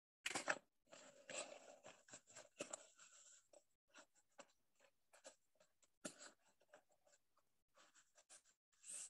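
Near silence with faint, irregular scratching and small clicks, busiest in the first three seconds.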